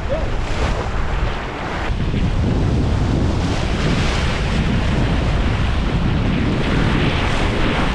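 Wind buffeting the microphone over the rush of sea water past a sailboat under sail, a loud, steady noise.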